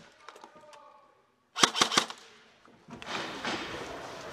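Airsoft gun firing a quick string of about five sharp snapping shots, then a steady rustling noise near the end.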